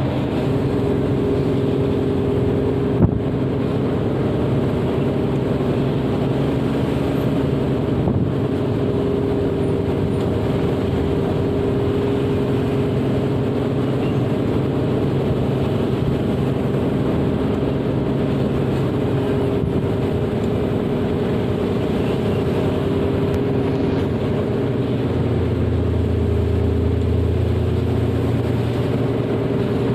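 A vehicle engine running steadily with road noise, with a single click about three seconds in and a low hum that grows stronger about 25 seconds in.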